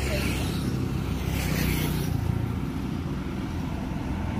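Road traffic going by: a steady drone of car and motorbike engines, with one vehicle rushing past about a second and a half in.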